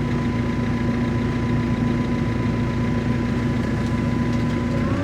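Engine running steadily at a constant speed, a steady drone with an even hum; near the end its pitch rises slightly.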